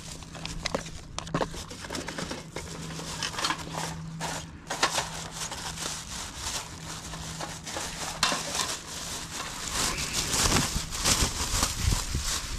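Thin plastic bag crinkling and rustling with many small crackles as a portable gas camping stove is pulled out of it, busier near the end.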